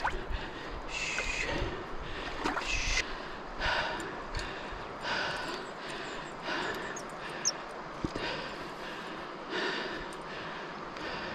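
A person breathing close to the microphone, one breath about every second and a half.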